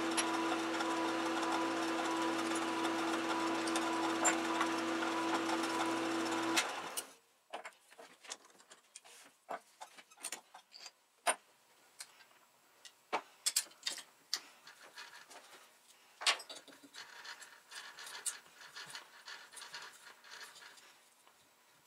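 Small metal lathe running steadily, then switched off about six and a half seconds in. After that come scattered light clicks and knocks of metal parts and tools being handled.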